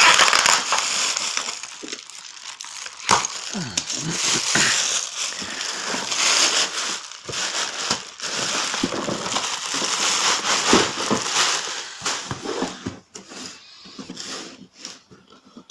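Plastic packaging crinkling and rustling as it is handled: a black plastic mailing bag and bubble wrap are pulled off a cardboard box. The crinkling thins out over the last few seconds as the box comes free.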